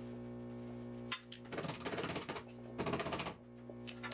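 Two short bursts of MIG welding crackle on a car's sheet-steel rocker panel, the first about a second long and the second about half a second, over steady background music.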